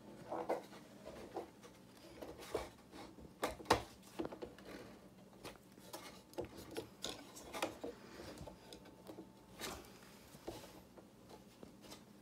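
Wooden parts and fittings of a Mabef M-22 French box easel knocking and rubbing as they are handled and adjusted, with scattered light taps and clicks, the sharpest a little under four seconds in.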